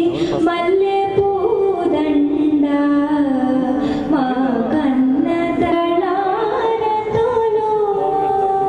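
A song sung in a South Indian classical (Carnatic) style, with long held notes that glide from one pitch to the next.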